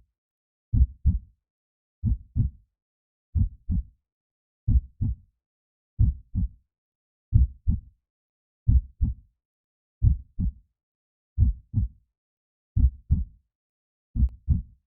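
Heartbeat sound, slow and steady: paired low lub-dub thumps about every second and a third, with silence between beats.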